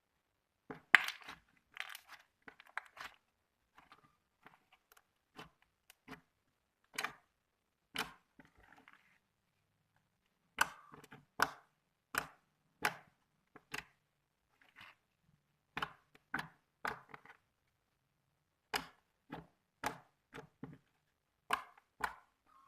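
Thick, glossy slime being worked by hand, giving short, sharp clicking pops at irregular intervals, about one every half second to a second, with a few short pauses.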